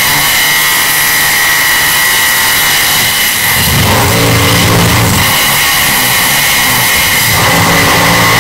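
Construction site noise, heavily distorted: a steady high machine whine runs throughout, and a deeper engine drone swells about three and a half seconds in and again near the end.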